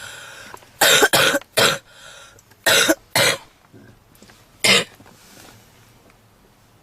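A woman's heavy smoker's cough: three coughs in quick succession about a second in, two more around three seconds, and a last single cough near five seconds. The uploader presents it as the cough of a long-term heavy smoker, typical of smoker's bronchitis.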